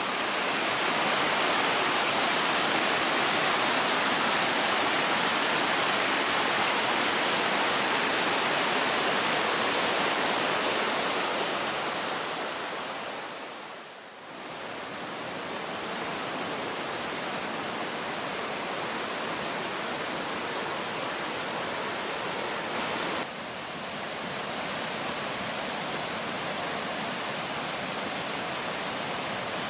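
Small waterfalls and cascades of a river gorge, white water rushing steadily over rock ledges. The sound fades down briefly about halfway through and comes back somewhat quieter, then drops a little more, suddenly, later on.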